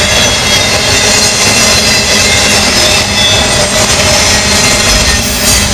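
Freight train of intermodal cars rolling past close by: a loud, steady noise of steel wheels running over the rails.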